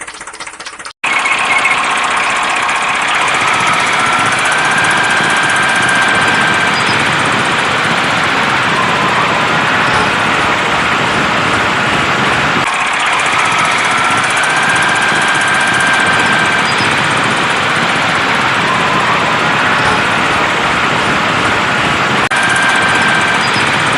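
Heavy construction-machine engine running loudly and steadily. It starts abruptly about a second in, after a brief cut, and its pattern repeats about every nine seconds, like a looped recording.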